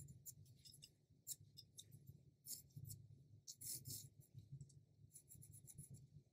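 Faint scratching of a 4B graphite pencil on rough watercolour paper, in short, irregular strokes as small lines are drawn.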